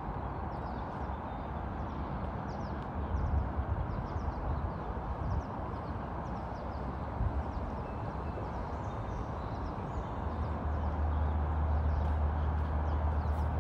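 Outdoor park ambience: a steady rush of wind and distant traffic with faint scattered bird chirps, and a low wind rumble on the microphone that grows stronger near the end.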